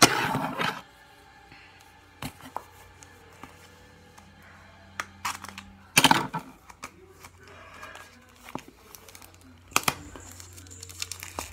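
Toy blind-bag packaging torn open and crinkled by hand: a loud tear and crinkle at the start, then scattered handling clicks, with sharp tearing bursts about six and ten seconds in.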